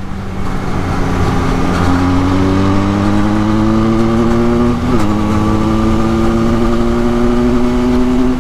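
Benelli 502C's 500cc parallel-twin engine accelerating, its pitch rising steadily as it pulls through a gear, with a quick upshift about five seconds in, after which it pulls and climbs again.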